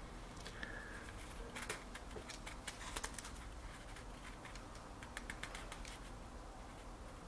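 Faint small clicks and ticks, in a few short clusters, of lock nuts being threaded and tightened onto the metal studs that hold a TV stand's board in place.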